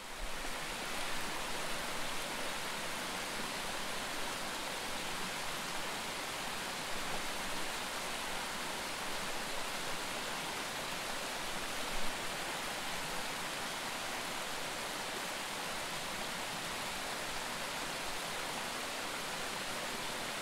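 Steady rushing water from a mountain stream, an even hiss with no change except a brief small swell about twelve seconds in.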